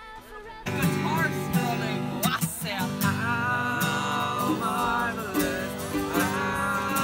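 Acoustic guitar strummed in chords while a group of voices sings along, starting abruptly less than a second in.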